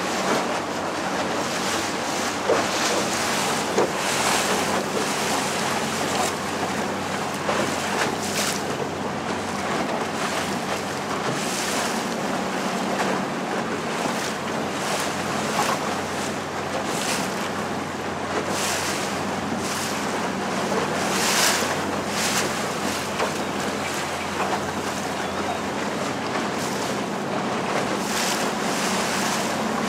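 A small open boat under way, its motor humming steadily under the rush of water along the hull, with splashes now and then. Wind buffets the microphone.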